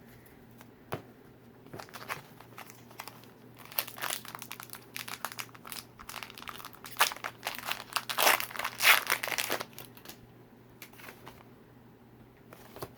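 Foil booster-pack wrapper of a Pokémon card pack being crinkled and torn open: irregular bursts of crackly rustling, loudest in the second half.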